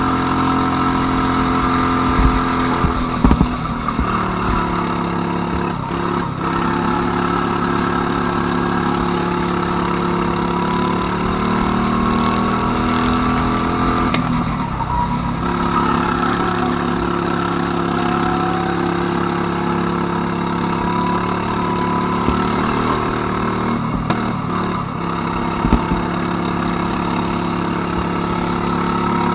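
Go-kart engines running hard, their pitch rising and falling as they speed up and slow down, with three short sharp clicks about eleven seconds apart.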